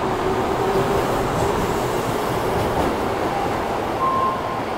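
Osaka Metro 22 series subway train pulling out of an underground station, with a steady rumble of wheels on rails as it runs off into the tunnel.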